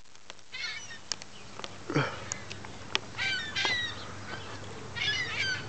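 A flock of gulls calling overhead in three short bursts of squawking calls, with a few sharp clicks in between.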